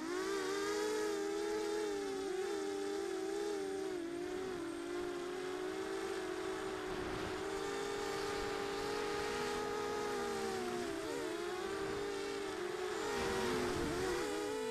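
Small FPV quadcopter's brushless motors and propellers whining, heard from the craft's own camera, the pitch rising and falling with throttle. The pitch drops and swings about two-thirds through and again near the end as the craft rolls and banks.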